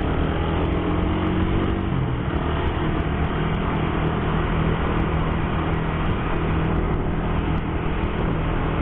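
Motorcycle running steadily while riding in traffic, with a continuous engine hum and road noise.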